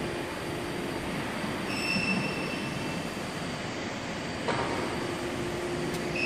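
Factory hall background noise: a steady hiss with a faint low hum, a high-pitched whine coming in for about a second and a half partway through and again near the end, and a single knock about four and a half seconds in.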